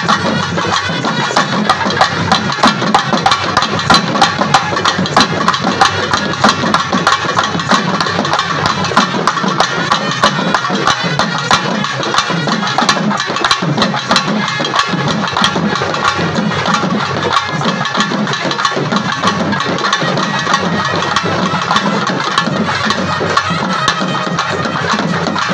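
Live festival band music: fast, continuous drumming on barrel drums with a shrill wind instrument playing a melody over it.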